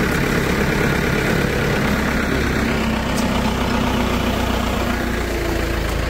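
An engine running steadily, holding an even pitch, with one faint click about three seconds in.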